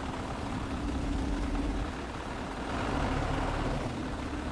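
A heavy vehicle's engine running steadily with a low rumble and a steady hum, swelling a little about three seconds in.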